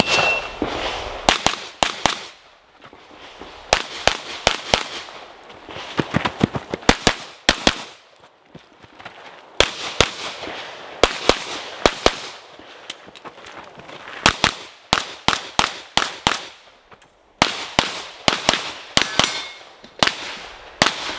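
Rapid strings of pistol shots during a practical-shooting stage run, fired mostly in quick pairs and clusters of several shots, with short pauses between groups as the shooter moves between positions.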